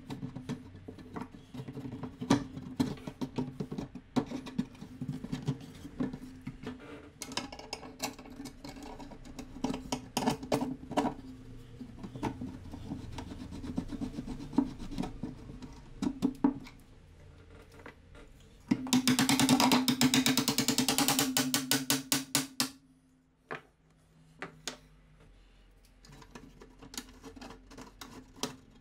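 Hand sanding of an antique beam drill's timber frame: sandpaper on wood, rubbing back and forth in repeated scraping strokes. Just past the middle comes a loud run of rapid ticking lasting about four seconds, followed by a few light knocks as parts are handled.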